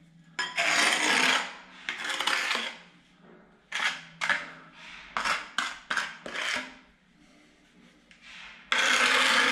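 Rasping scrapes of a trowel working tile adhesive: two longer strokes, then a run of short quick ones, and another long stroke near the end.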